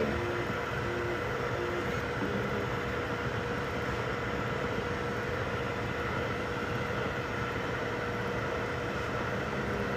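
3D printers running: a steady mechanical whir with a few steady tones, and a short tone that switches on and off a few times in the first two seconds.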